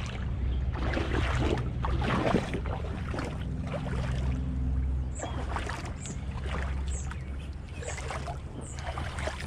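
Shallow creek water splashing and sloshing in irregular bursts over a steady low rumble, with faint short high chirps about once a second in the second half.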